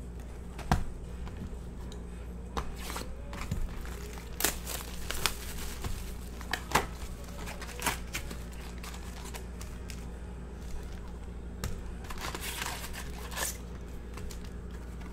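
Trading-card pack wrappers crinkling and tearing, with scattered light clicks and taps of cards and packaging being handled, and a longer stretch of crinkling near the end.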